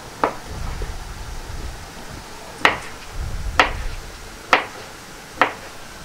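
Kitchen knife slicing a sausage into pieces, the blade knocking on the cutting board five times, the last four about a second apart.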